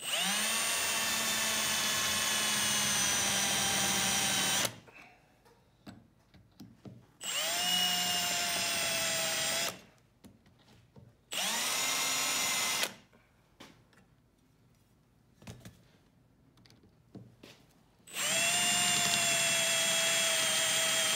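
Milwaukee M18 cordless drill drilling holes into the roof edge of a 1997 Jeep Grand Cherokee, in four separate runs. Each run spins up with a rising whine and then holds a steady pitch, with short pauses and small clicks between runs; the last run starts near the end.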